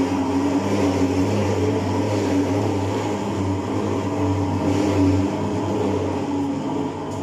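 Thermal fogging machine running with a steady drone while spraying insecticide fog against dengue mosquitoes.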